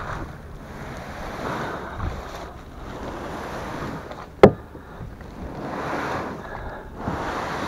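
Plastic hull of a Tuna Pro sit-on-top fishing kayak being dragged through tall grass, a rustling, scraping swish that swells and fades, with one loud sharp knock about four and a half seconds in.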